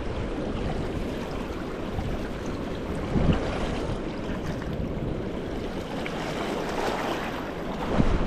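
Wind buffeting the microphone over the steady rush of river water, with louder gusts about three seconds in and near the end.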